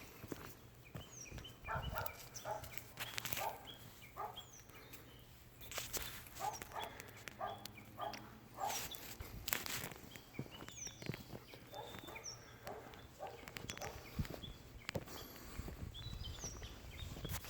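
Wood bonfire crackling and popping in irregular sharp snaps, with short high chirps scattered throughout.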